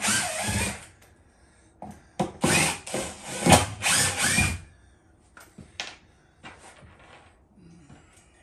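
Power drill running in short bursts, about six in the first four and a half seconds, backing screws out of a plywood subfloor panel. Fainter short noises follow.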